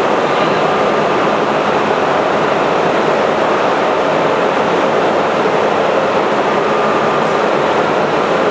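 Steady hum and hiss of an R32 subway train standing at the platform with its air-conditioning running, a faint thin whine coming and going over it.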